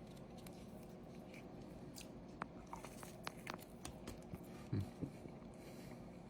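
A person chewing a fried-shell chicken chalupa close to the microphone: faint mouth sounds with scattered small crunches and clicks, more of them after the first couple of seconds.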